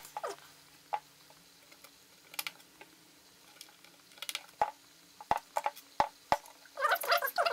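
Small plastic control knobs being pushed onto the front-panel control shafts of a MOTU UltraLite audio interface: a string of short, light clicks and taps, with a louder rubbing squeak near the end.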